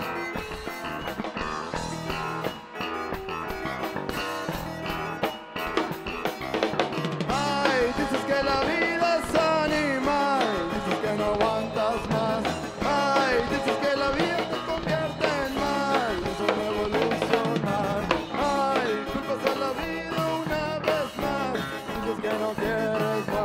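Live rock band playing an instrumental passage: drum kit, electric bass, electric guitar and keyboard, over which a lead melody bends and slides up and down.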